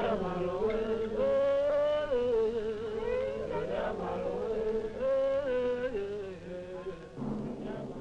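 Soundtrack music: a sung chant of held notes that step up and down, over lower sustained tones. About seven seconds in, it gives way to a lower, steadier accompaniment.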